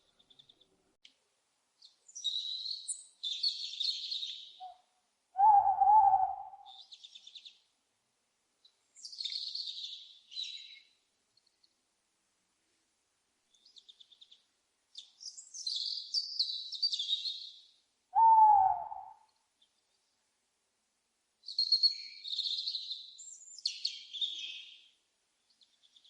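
An owl gives two loud hoots about twelve seconds apart, each short and slurring down in pitch. Bursts of high chirping bird calls come in clusters before, between and after the hoots.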